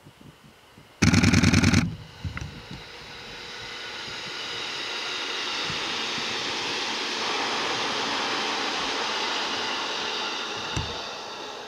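A JR East 209-series electric test train gives a short, loud horn blast, then passes close by with a steady rush of wheel and running noise that builds over several seconds and eases near the end.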